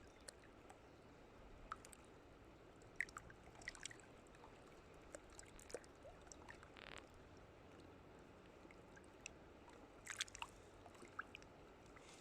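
Near silence with a faint steady hiss and scattered small clicks and ticks, clustered about three seconds in and again near the end.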